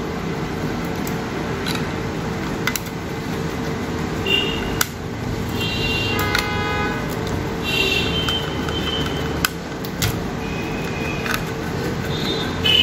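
Vehicle horns honking in short toots several times over a steady hum, with a few sharp clicks from a screwdriver and small metal parts as a laptop heat sink is fitted to the motherboard.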